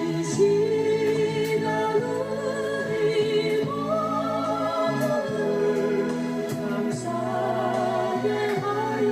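Gospel hymn sung with a wide vibrato over held electronic organ chords, the voice swelling to higher held notes about halfway through and again near the end.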